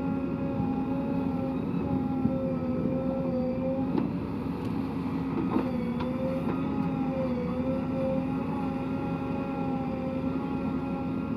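Heavy diesel earth-moving machinery running steadily, a droning engine note with a whining tone whose pitch dips slightly a couple of times under load. A few short clanks come in the middle.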